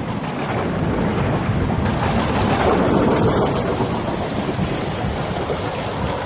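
Stock thunderstorm sound effect: heavy rain with rolling thunder. It starts abruptly and swells to its loudest about three seconds in.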